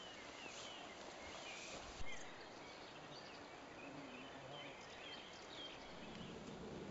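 Small birds chirping here and there, short scattered calls, over a faint steady outdoor hiss, with one sharp click about two seconds in.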